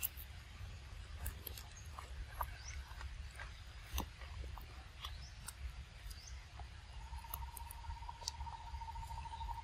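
A macaque eating small fruits, with scattered small crunches and clicks from chewing and picking at the fruit. Faint bird chirps come in now and then, and a steady thin tone starts about seven seconds in.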